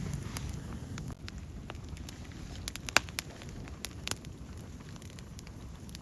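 Wood campfire crackling, with irregular sharp pops over the low rumble of the burning fire; the loudest pop comes about three seconds in.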